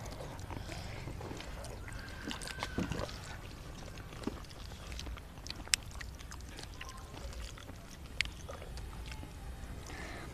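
Quiet eating sounds of instant noodles eaten by hand: wet mouth and slurping noises, with a few sharp clicks.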